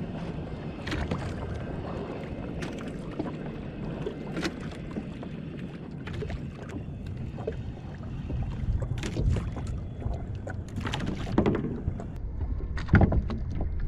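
Wind on the microphone and water sloshing against a small fishing boat, with scattered clicks and knocks.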